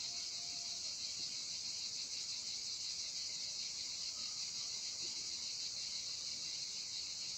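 Steady, high-pitched chorus of insects shrilling without a break.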